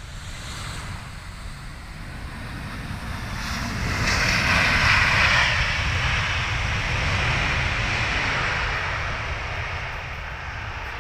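Airbus A321-200 airliner's jet engines on its landing roll-out, a loud steady noise that swells to a peak about four seconds in and then slowly fades.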